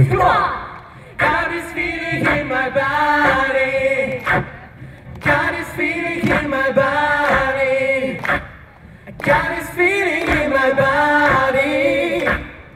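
Mixed male and female a cappella group singing into microphones through a stage PA, in sung phrases of about three seconds separated by short breaks.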